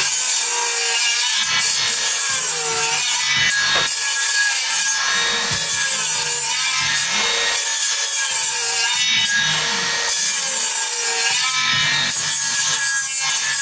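Handheld circular saw cutting through a thick treated-timber beam, the blade running steadily in the wood under load with a motor whine that wavers in pitch as it cuts.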